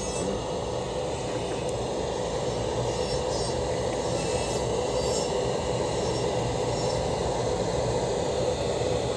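A steady machine hum with a faint steady whine in it, even throughout with no grinding on metal.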